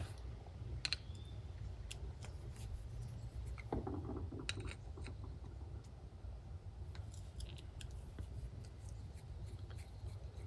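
Faint scattered clicks and a little light scraping of a hand tool and small metal parts as a trimmer carburetor's chamber cover is taken apart, over a low steady background hum.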